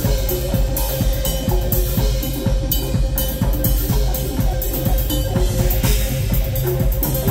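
Live band playing: a drum kit keeps a steady beat with kick, snare and cymbals under electric guitar and electric bass, with one long held note sustained over it.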